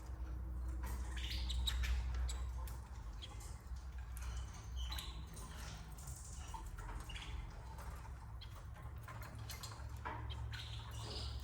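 Canaries at the nest giving a few brief high chirps, with scattered scratching and clicking as they move in the nest, over a steady low hum.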